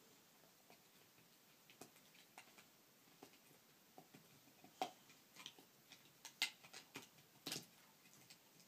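Bullmastiff puppy chewing on a hanger: faint, irregular clicks and crunches of teeth on the hanger, with a few louder snaps past the middle.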